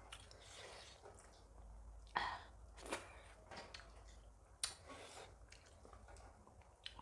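Chewing a meal of maize dhido and curry, quiet, with a few short louder mouth sounds about two, three and four and a half seconds in.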